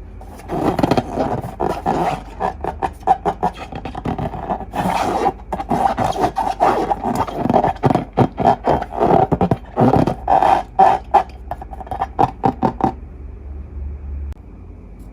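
Slime being worked by hand: a long run of quick, irregular sticky clicks and scrapes that stops about two seconds before the end.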